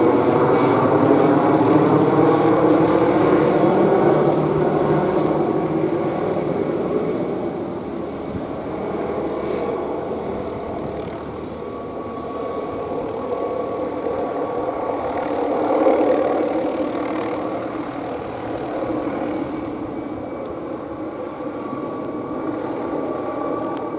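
MD 520N NOTAR helicopter flying past overhead. Its engine and rotor sound dips slightly in pitch over the first few seconds, then slowly fades as it moves away, swelling briefly about sixteen seconds in.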